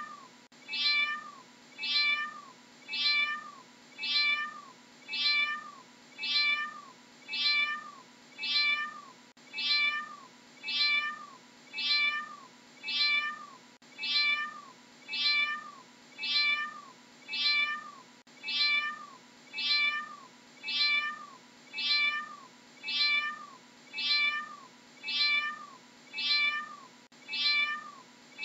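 A domestic cat meowing over and over: identical short meows, about one a second, each rising then falling in pitch.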